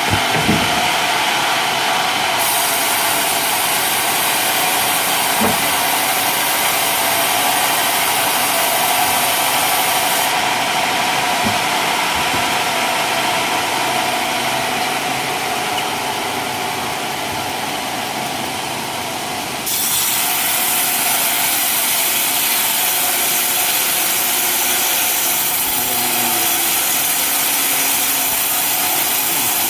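Sawmill blade cutting steadily lengthwise through a coconut palm trunk, a continuous loud rasping of saw on wood. The sound sags slightly and then jumps back up abruptly about two-thirds of the way through.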